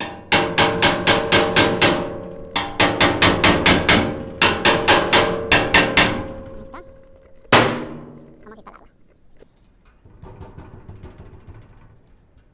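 Hammer blows straightening a bent steel toolbox: three quick runs of strikes, about five a second, with the sheet metal ringing, then one single heavier blow.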